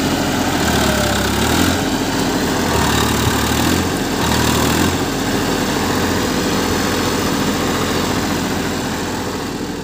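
Massey Ferguson 241 DI tractor's three-cylinder diesel engine running hard under load as the tractor churns through deep mud to pull itself free; its note wavers every second or so.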